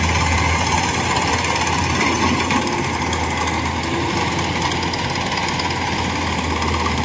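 Kubota DC105X rice combine harvester working, its diesel engine and cutting and threshing machinery making a loud, steady drone with a deep hum underneath.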